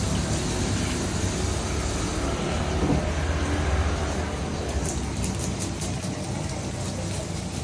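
Steady low machine hum under a hiss of water spraying from a hose nozzle, with a few light knife scrapes on the fish near the end.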